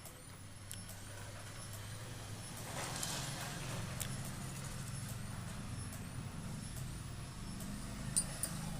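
A low, steady mechanical rumble that grows a little louder about three seconds in, with a short rustling burst at about the same moment.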